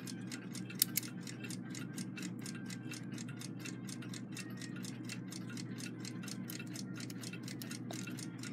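A mechanical clock ticking steadily, about five ticks a second, over a low steady hum, with one sharper click about a second in.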